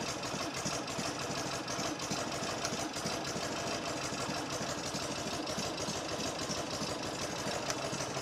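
1973 Norton Commando 850 Mk2's 828cc parallel-twin engine idling steadily, ticking over evenly.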